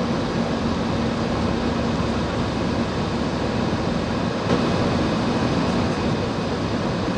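Steady cabin noise of an Airbus A320 climbing after take-off: jet engines and rushing air, with a low hum that weakens about three seconds in.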